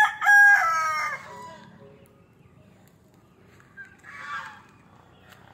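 Rooster crowing loudly, the call ending about a second and a half in. A shorter, fainter call follows about four seconds in.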